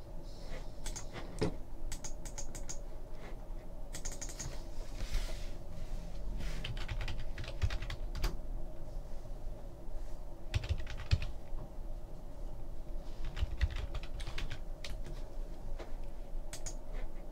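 Computer keyboard typing in several short bursts of clicks, with pauses between, over a faint steady hum.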